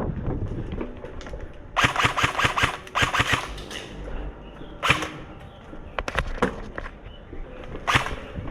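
Airsoft rifles firing: a rapid full-auto burst about two seconds in and another a second later, then a few single sharp shots.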